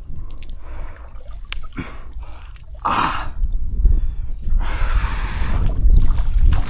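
Water splashing and squelching in the shallows, in surges about 3 seconds in and again near the end, over wind buffeting the microphone.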